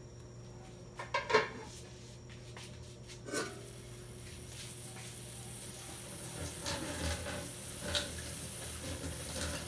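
A few light metal knocks from a wok on the stove, the loudest about a second in, then a faint steady hiss as the wok heats and a drop of water on its surface starts to sizzle.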